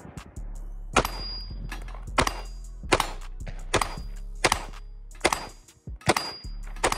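Glock 19X 9mm pistol firing a slow string of about eight shots, each under a second or so after the last.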